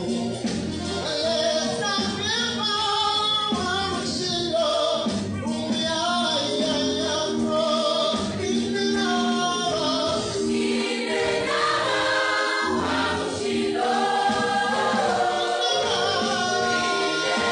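Mixed choir of men's and women's voices singing a Bemba gospel song together in parts.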